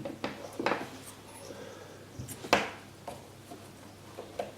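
Scissors snipping off excess fabric around a headphone ear pad: a few separate sharp snips, the loudest about halfway through.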